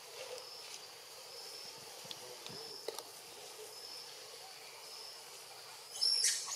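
Insects chirping outdoors in a steady series of short, high notes repeating about once or twice a second, with a few faint clicks. Near the end comes a brief, louder high-pitched call.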